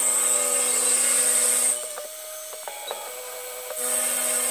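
Benchtop CNC mill's end mill cutting a wooden block: a steady machine whine over a high cutting hiss. About two seconds in the cutting stops and only a quieter whine with a few clicks remains, then the cutting starts again near the end.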